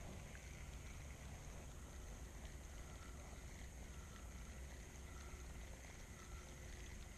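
Quiet ambience aboard a small fishing boat on a lake: a faint, steady low rumble with light hiss and no distinct event.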